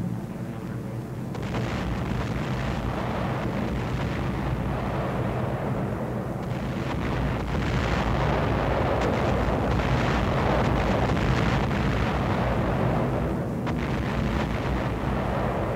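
Bomber engines droning, joined about a second in by a continuous heavy rumble of bomb explosions that swells to its loudest in the middle and eases near the end.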